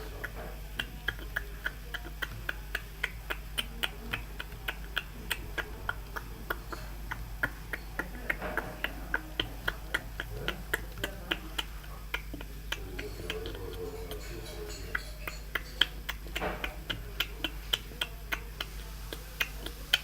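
Quick footsteps on a hard floor, about three steps a second, over a steady low hum.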